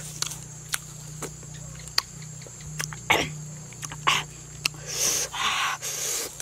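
Close-up eating sounds: sharp mouth clicks and lip smacks while fingers pull apart cooked fish, with a few short breathy bursts about five seconds in.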